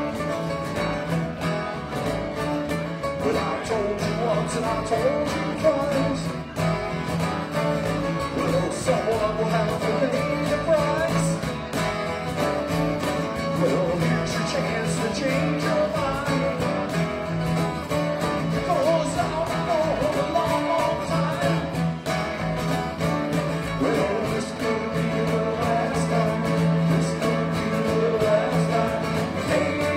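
A small live band playing a song: a man singing over strummed acoustic guitars and an electric bass, with a cajón tapping out the beat.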